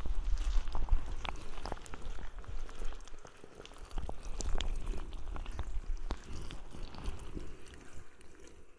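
Binaural ASMR head-massage sounds: soft rubbing on the microphone with a low rumble and many scattered crackling clicks, louder in the first few seconds.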